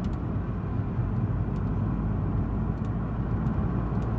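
Steady low rumble of engine and tyre noise heard from inside a moving car's cabin.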